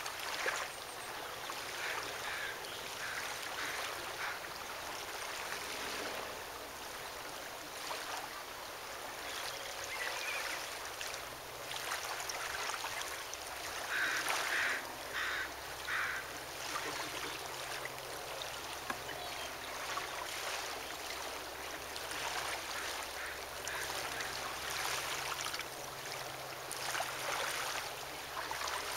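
Shoreline ambience: a steady rushing wash of water on the shore, with a few short bird calls, the loudest cluster about halfway through.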